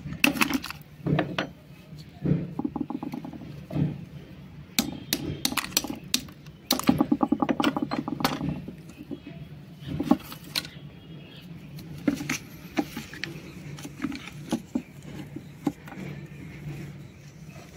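A large block of white shale split along its layers with a knife blade driven into the seam. There are sharp taps and clinks, two bursts of rapid crackling as the stone gives, and one harder knock about ten seconds in.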